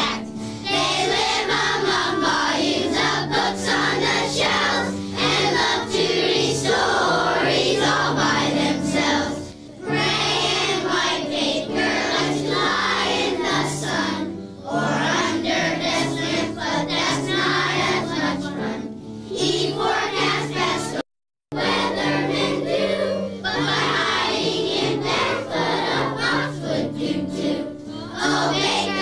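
A children's choir of second graders singing in unison over an instrumental accompaniment with a repeating bass line. The sound cuts out completely for a split second about two-thirds of the way through.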